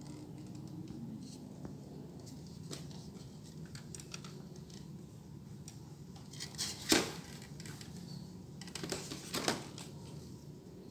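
Scattered clicks and knocks of a hard plastic toy jigsaw being handled, the loudest about seven seconds in and a few more close together near nine seconds, over a low steady hum.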